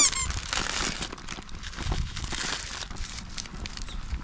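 Irregular crinkling and rustling, with a brief voice-like sound right at the start.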